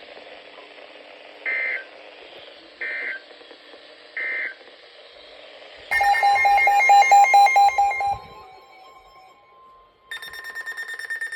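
Emergency Alert System end-of-message data bursts: three short digital bursts about a second and a half apart. About six seconds in, a loud fast-pulsing electronic alert beep starts and trails off into a steady tone. Near the end a faster, higher pulsing beep begins.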